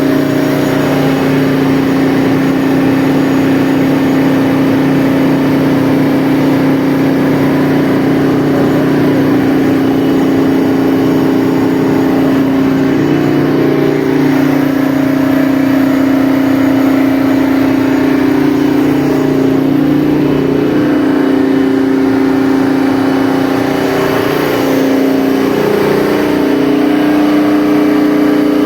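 Detroit Diesel 24V71 two-stroke V24 diesel engine of a 1000 kW Kohler generator set running steadily, with a strong, even engine tone.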